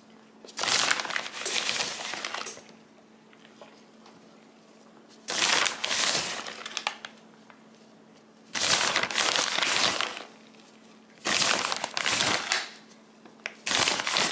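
A plastic bag of shredded Mexican-style blend cheese crinkling as it is handled and opened, in five separate bursts of one to two seconds each, over a faint steady hum.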